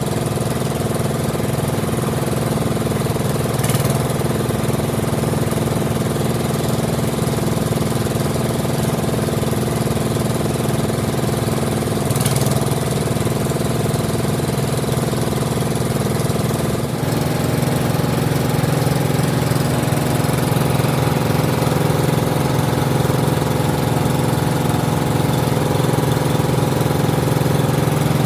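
Workshop machinery running with a steady engine-like hum, with two brief sharp ticks early on and a slight change in the hum about two-thirds of the way through.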